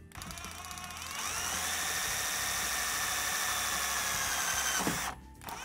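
Cordless drill spinning up and drilling a small pilot hole through a black aluminium shower-frame profile. A steady whine rises in pitch over the first second, holds, and stops about five seconds in.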